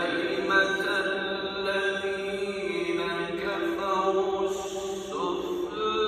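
Qur'an recitation (tilawah): a single voice chanting in long, held melodic notes, moving to a new pitch every second or two.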